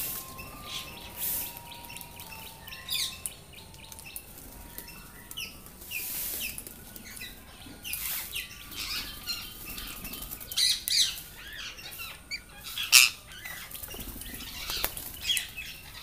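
A flock of parakeets at a feeder: wings flapping as birds land and take off, with short shrill calls scattered irregularly throughout. The loudest is a sharp sound near the end.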